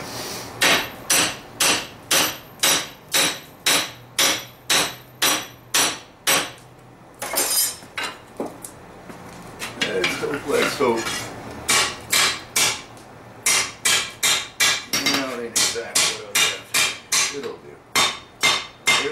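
Hand hammer striking a red-hot steel claymore blade, steady blows about two a second. The blows pause for a few seconds about a third of the way through, then pick up again on the anvil, a little faster toward the end.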